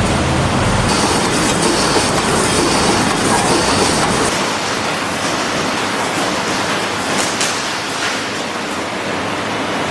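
3D fence panel wire mesh welding machine running: a loud, dense, continuous mechanical clatter, its deep rumble dropping away about halfway through.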